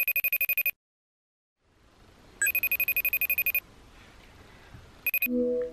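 Phone ringtone: a fast-trilling, bell-like ring that comes in bursts of about a second, three times, with the third cut short. A brief lower tone follows near the end.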